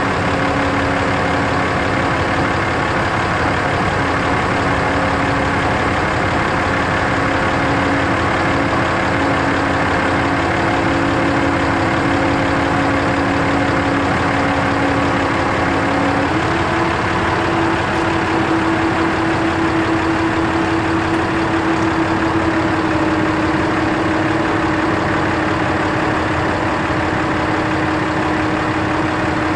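Cummins 6.7L ISB diesel engine of a Dodge 5500 bucket truck running steadily while powering the hydraulics of its Altec boom as the boom moves. About halfway through, the steady hum steps up slightly in pitch and holds there.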